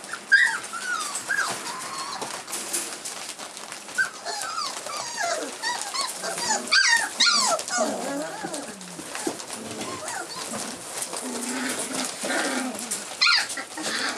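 A pen full of month-old rough collie puppies yipping and whining over one another, many short high-pitched calls at once, in an excited state.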